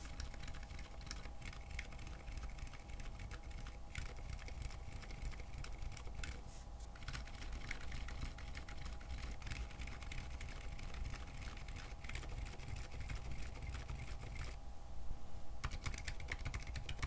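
Typing on a mechanical keyboard fitted with JWK Coral silent linear switches: a fast run of very quiet, muted keystrokes, the bottom-out and upstroke cushioned by rubber dampeners, with a brief pause near the end. A steady low hum sits underneath.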